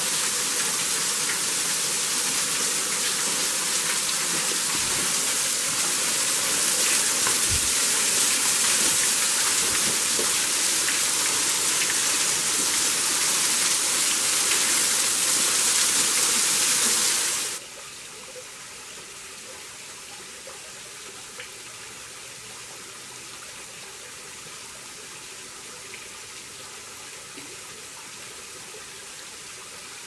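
Small waterfall splashing steadily onto rocks, a loud, even rush of water. A little over halfway through it cuts off abruptly to a much quieter, steady water sound.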